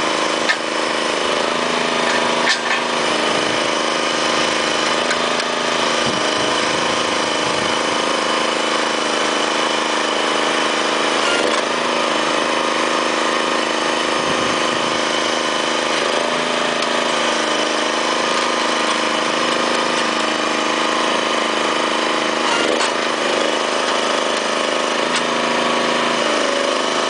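Small engine on a truck-mounted well-pulling rig running steadily, with a few short sharp clanks over it.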